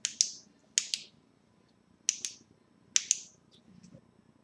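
Four groups of sharp clicks, mostly quick pairs, from a small switch being clicked as the bench lighting is changed to light the plate from underneath.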